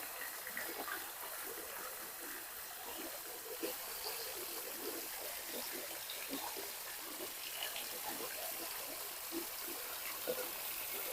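River water trickling and gurgling in small, irregular splashes, over a steady hiss.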